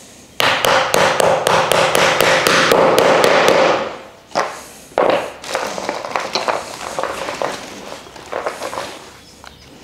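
A hammer tapping rapidly on the end of a wooden upright, about five blows a second for some three seconds, driving a triangle connector into it. Two single harder knocks follow, then lighter knocks.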